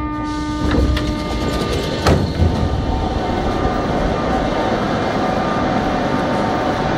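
Metro train at a station platform: an electric whine of several steady tones that fades out about a second and a half in, a knock near two seconds, then the steady rumbling noise of the running train.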